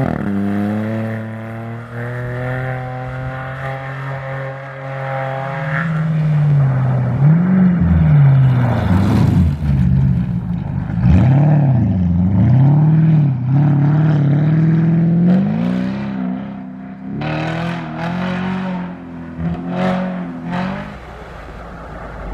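Rally-raid competition car's engine running hard, its pitch rising and falling again and again as the driver accelerates and changes gear.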